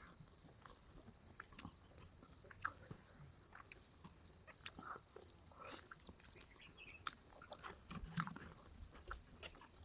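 Faint chewing and mouth sounds of a person eating pork curry: soft wet smacks and small clicks scattered irregularly.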